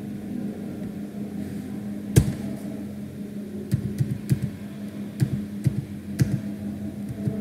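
Computer keyboard keys clicking as a phone number is typed: one sharp click about two seconds in, then a run of irregular keystrokes through the second half. A steady low hum sits underneath.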